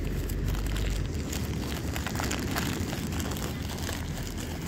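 Wind buffeting the microphone on an open beach, a steady low rumble, with faint scattered crackles over it.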